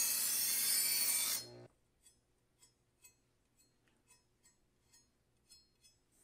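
Chef's Choice 250 electric sharpener's motor-driven diamond abrasive discs grinding a chef's knife blade pulled through the stage-one slot, a loud, even grinding hiss that stops abruptly about a second and a half in. Faint light ticks follow as the knife is handled.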